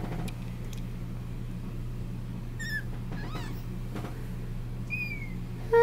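Very young Persian kittens, their eyes just opened, giving a few short, thin, high-pitched mews, one falling in pitch near the end, over a steady low hum.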